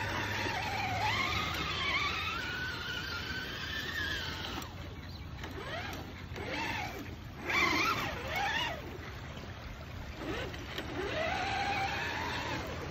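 Brushless electric motor of a Traxxas TRX-6 six-wheeled RC crawler (a Castle 1512 2650kv) whining under throttle. Its pitch rises and falls as the speed changes, with a quieter stretch past the middle and a sharp surge just after it.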